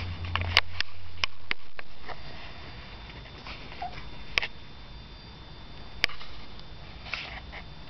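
A puppy sniffing and snuffling with its nose buried in a fur blanket: short breathy sniffs mixed with a few sharp clicks, over a low rumble that stops about a second and a half in.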